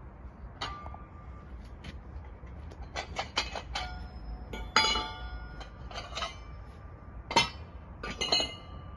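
Galvanized steel barrier parts clinking and clanking against each other and the steel rack as they are handled, a series of separate knocks, several leaving a short metallic ring. The loudest clanks come about halfway through and again near the end.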